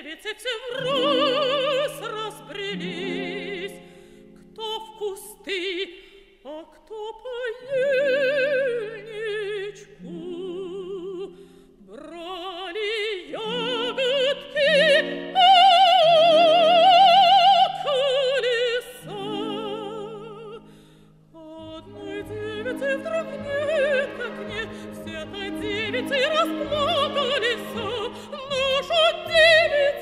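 Operatic singing: a solo voice with wide vibrato, holding long notes over an orchestral accompaniment. About two-thirds of the way through, the accompaniment becomes fuller, with low notes added.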